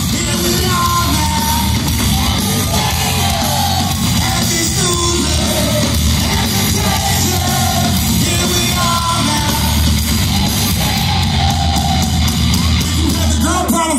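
Rock band playing live and loud through a concert PA: a singer's voice over heavy distorted guitars, bass and drums, heard from the crowd.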